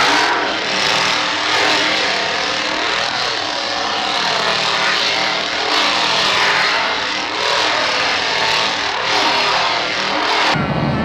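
Gasoline chainsaw running, revving up and down again and again. Near the end it is cut off abruptly by loud heavy-metal music.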